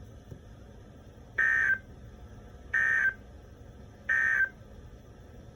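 Three short buzzy Emergency Alert System (SAME) data bursts, each under half a second and about a second apart: the end-of-message code that closes an alert.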